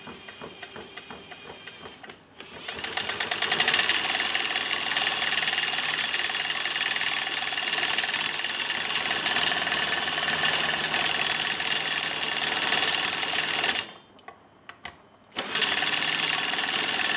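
Cut-open TB43 brush-cutter engine being spun fast, its piston running up and down in the sectioned cylinder with a loud, fast mechanical clatter. Light ticking at first, the clatter building about two seconds in, stopping near the end for about a second and a half, then starting again.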